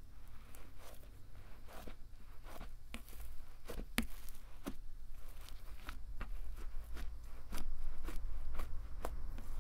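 Fluffy cloud slime, made with instant-snow polymer, being stretched, folded and pressed by hand, giving an irregular string of soft crackles and sticky little pops, one sharper snap about four seconds in.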